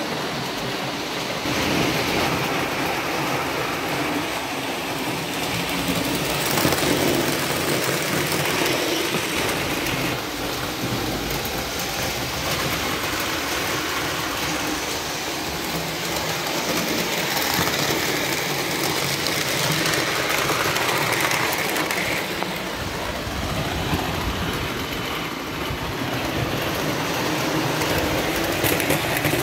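Several Lionel O-gauge model trains running at once on three-rail metal track, a steady rolling rumble of wheels and electric motors that swells and eases a little as the trains pass close by.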